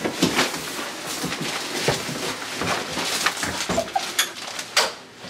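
Irregular clicks, knocks and footsteps of someone handling a room key and a wooden door in a small hallway, with a couple of short squeaks near the end.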